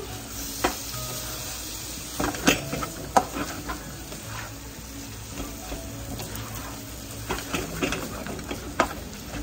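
Stir-frying in a nonstick wok: the food sizzles steadily while a spatula scrapes and taps against the pan, with a few sharper knocks about two and a half seconds in, a second later, and near the end.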